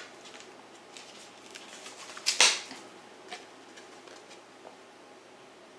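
Plastic CD jewel case being handled: a few light clicks, then one loud sharp clack about two and a half seconds in, and a few faint ticks after it.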